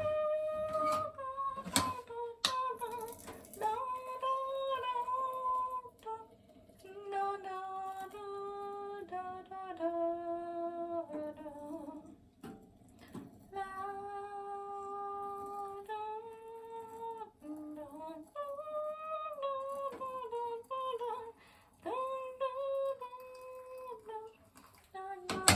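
A woman humming or singing a slow, wordless tune in long held notes that step up and down, with a few sharp clicks in the first couple of seconds.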